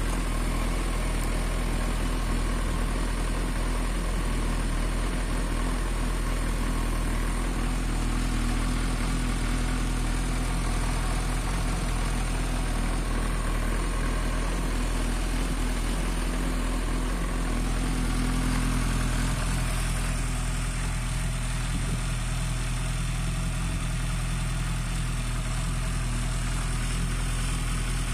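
Suzuki Bandit 1250's inline-four engine running steadily on the stand, held at an even speed with no revving. Its note shifts slightly about twenty seconds in.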